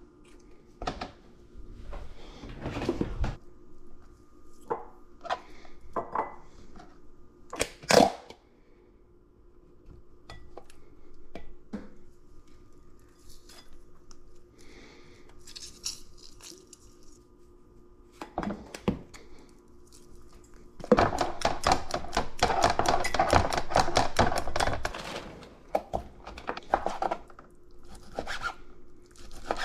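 Kitchen cooking sounds: scattered clatters, knocks and thunks of pans, dishes and utensils over a steady hum. About twenty-one seconds in comes a few seconds of fast, even scraping strokes, the loudest part.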